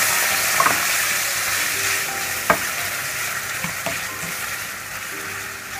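Cream sizzling in a hot frying pan with chicken pieces as it is stirred with a wooden spoon, with a few sharp knocks of the spoon against the pan. The sizzle slowly dies down as the cold cream takes the heat out of the pan.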